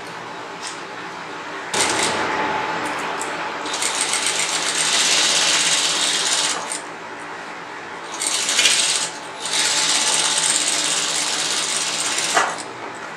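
Industrial single-needle sewing machine stitching through folded black blouse fabric. It starts about two seconds in, picks up speed around four seconds, stops briefly near seven seconds, then runs again with a short pause just after nine seconds before stopping near the end.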